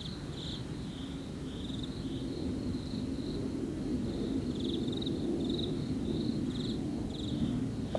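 Insects chirping: short, high, pulsed chirps coming irregularly, over a steady low rumble of room or background noise.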